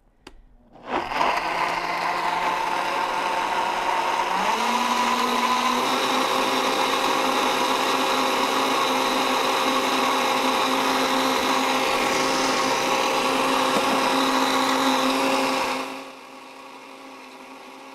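Countertop blender motor starting about a second in and puréeing cooked broccoli, spinach and basil into a smooth soup. Its whine steps up in pitch a few seconds in and runs steadily, then drops to a much quieter hum near the end as it winds down.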